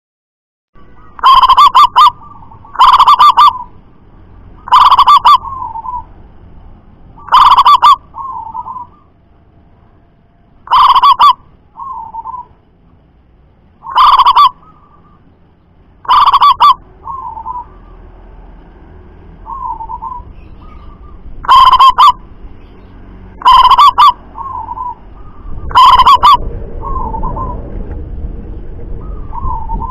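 Zebra dove (perkutut) calling repeatedly: loud, sharp, very short notes every two to three seconds, some in close pairs, several followed by a softer, lower fluttering coo. A low rumbling noise rises near the end.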